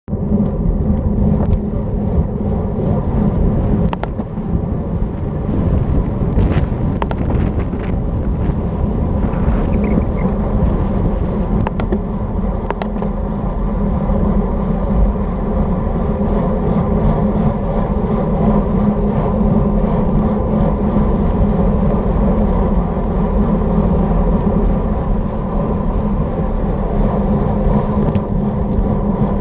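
Wind buffeting the microphone and tyre noise from a road bike descending fast on pavement, a steady loud rush with a low hum. Several short, sharp clicks are scattered through.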